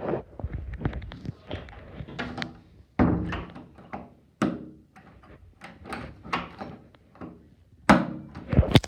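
Irregular knocks and thumps of someone moving about and handling things while fetching a pair of scissors, with a louder thunk about three seconds in and a cluster of knocks near the end.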